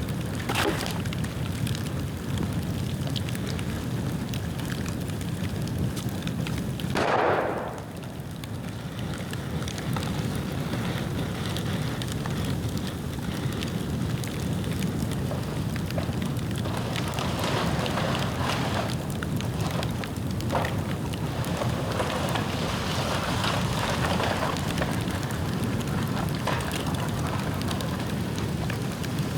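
Dry bamboo burning in a bonfire: steady crackling with scattered pops, and a louder burst about seven seconds in.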